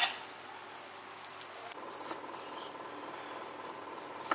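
Quiet kitchen background: a steady low hiss with a faint even hum, a few soft taps and a sharper click near the end.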